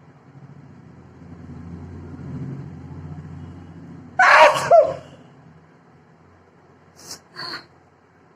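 A woman sneezes once, loudly, about four seconds in. The sneeze comes after a few seconds of breath building up, and two short, quieter breathy sounds follow near the end.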